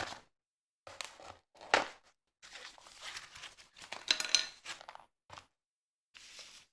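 Packaging being handled: irregular crinkling and tearing sounds in short bursts, the loudest a little under two seconds in.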